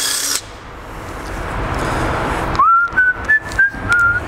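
A person whistling a short tune of about five clear notes. It begins about two and a half seconds in with a note that slides up, and the next notes step up and back down with short breaks between them. A short harsh burst of noise cuts off just at the start.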